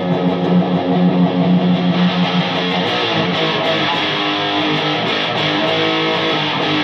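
Electric guitar played through a home-built high-gain valve amplifier with 1930s AF7 and AL4 tubes, its tone stack's treble turned down. A note is held for the first couple of seconds, then a run of changing notes follows.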